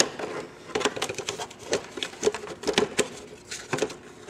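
Irregular plastic clicks, taps and scrapes of a coaxial speaker being pushed and wiggled by hand into a motorcycle fairing's speaker opening, where it is catching and stuck.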